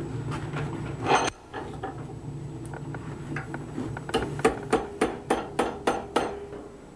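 Hammer striking a hand-held punch set against red-hot iron: one blow about a second in, then a quick run of about eight sharp metallic strikes near the end, three or four a second. The punch is driving the nostrils into the nose of a forged poker's face.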